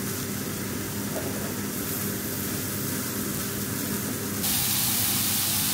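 Meatball patties sizzling in oil in a hot frying pan, over a steady low hum. About three quarters of the way through, the sizzle turns suddenly louder and brighter.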